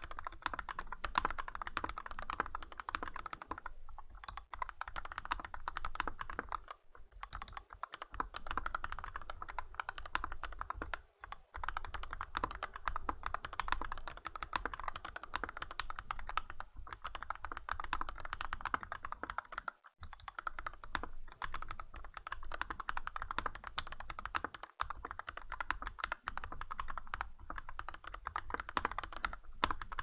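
Fast, steady typing on a Rakk Lam-ang Pro TKL mechanical keyboard fitted with lubed Gateron Milky Yellow linear switches (Krytox 205g0) and pudding keycaps, the keystrokes running together in a dense clatter with a few short pauses.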